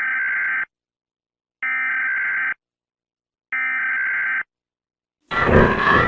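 Emergency Alert System SAME header: three identical bursts of data tones, each just under a second long, about a second apart. Near the end a loud, noisy sound with wavering pitches cuts in.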